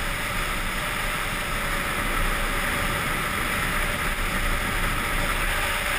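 Steady rush of wind over the microphone at speed, mixed with longboard wheels rolling on asphalt during a fast downhill run.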